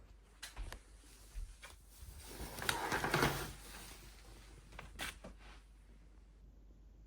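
Handling noises: a few light clicks and knocks, with a louder rustling scrape about three seconds in.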